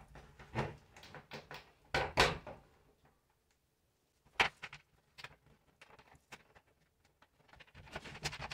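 Hands working a white molded plastic shower wall panel: scattered knocks, scrapes and rubbing. The loudest knocks come about two seconds in and there is a sharp click a couple of seconds later.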